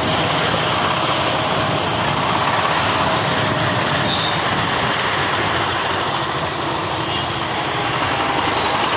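VST power tiller's single-cylinder diesel engine running steadily while the tiller is driven under way.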